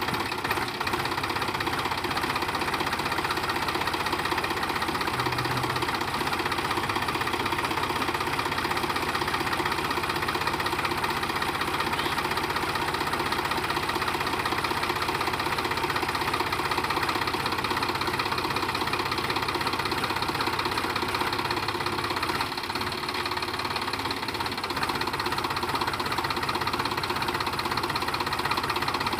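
Sonalika DI 35 tractor's three-cylinder diesel engine running steadily with a knocking beat, working against a heavy sand-loaded trailer with its rear wheel dug into soft sand. The engine eases briefly about three quarters of the way through, then picks up again.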